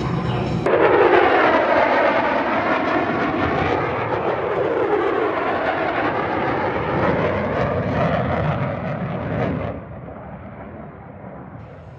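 A military fighter jet flying past, its loud jet roar sweeping and swirling as it passes, then dropping suddenly to a quieter rumble near the end.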